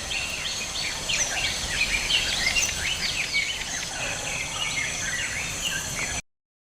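Nature ambience of many birds chirping and calling in overlapping short, sweeping notes over a steady high insect drone. It cuts off abruptly to silence about six seconds in.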